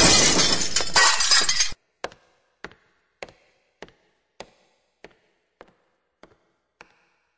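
A loud crash of shattering glass that cuts off suddenly a little under two seconds in. It is followed by a string of sharp ticks, about one every 0.6 s, that grow fainter.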